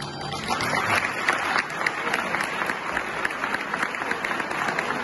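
Audience applauding at the close of a mariachi song, the clapping swelling up over the first second and then holding steady.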